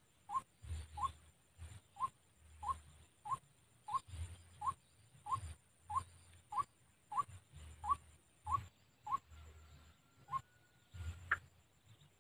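White-breasted waterhen (ruak-ruak) calling a long run of short, upward-inflected notes, somewhat under two a second, that stop about ten seconds in. A last higher note follows near the end, and low muffled thuds run beneath.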